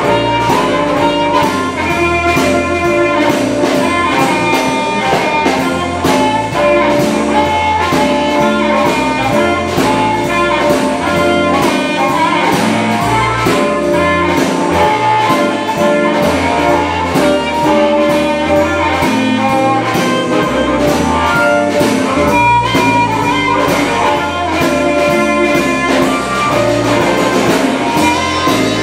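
Live electric blues band playing: amplified harmonica played into a microphone, lead over electric guitar, electric bass, and a drum kit keeping a steady beat.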